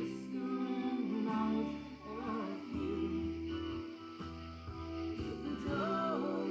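Background music: a song with singing over guitar and a steady bass line.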